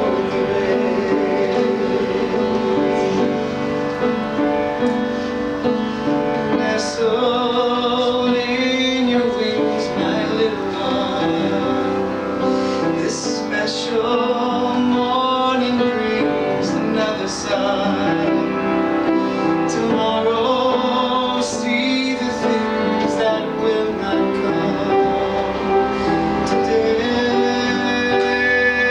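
Music with singing over instruments, loud and continuous.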